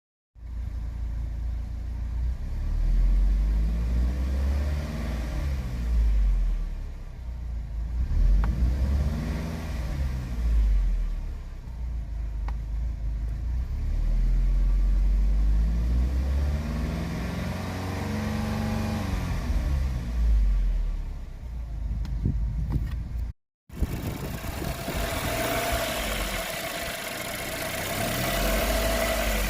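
Chevrolet Equinox engine revved several times, its pitch rising and falling with each blip of the throttle and settling back to idle between them. About 23 seconds in the sound cuts off briefly and resumes with more hiss and a steady tone over the engine, with one more rev near the end.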